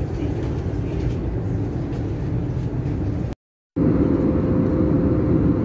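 A steady low rumble, broken by a brief cut. After the cut, a louder airliner cabin drone begins, with a steady hum above it.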